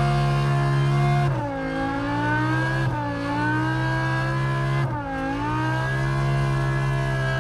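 BMW M5 E60's V10 engine revving hard while the car drifts, heard from inside the cabin. The revs are held steady, then drop and climb again three times as the throttle is worked, and are held steady once more near the end.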